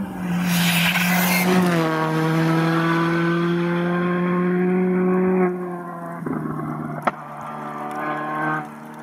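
Skoda Fabia Rally2 Evo's 1.6-litre turbocharged four-cylinder engine pulling at high revs as the rally car passes at speed, with a rush of tyre and road-spray noise in the first second or so. The engine note holds steady, drops away about five and a half seconds in, then picks up again, with a single sharp crack about seven seconds in.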